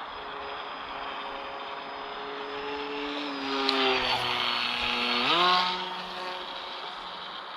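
Small electric RC plane's brushless motor and propeller buzzing in flight. It grows louder for a couple of seconds mid-way as the plane comes close, its pitch sliding down and then rising sharply at the loudest point before it fades again.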